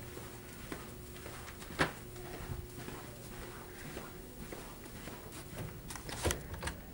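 Footsteps walking along a carpeted hallway over a faint steady hum, with scattered soft knocks; a sharper knock about two seconds in, and another near the end as a door is reached and handled.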